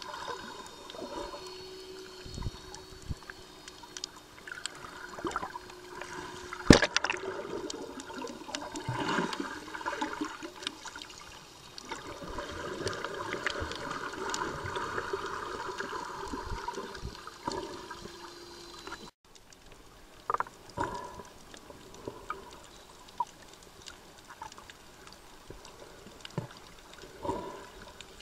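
Muffled underwater water noise picked up by a camera submerged in the sea, with scattered small clicks and one sharp, loud knock about seven seconds in.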